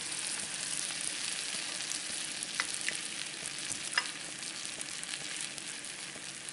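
Bread slices toasting in vegan butter in a hot nonstick frying pan, a steady sizzle, with a few light clicks about midway.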